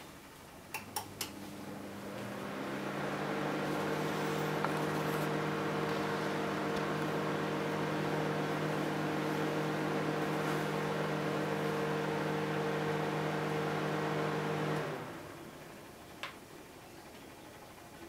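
Microwave oven heating: a few clicks about a second in, then a steady electrical hum with fan noise builds up and runs until it dies away about 15 seconds in, followed by a single click.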